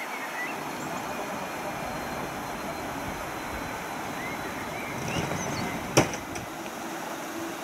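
Airbus A330 taxiing at idle thrust: a steady rushing jet-engine noise with a faint high whine. A single sharp click comes about six seconds in.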